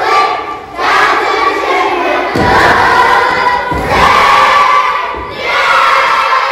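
Large group of young children singing and calling out together in unison, with some low thumps around the middle.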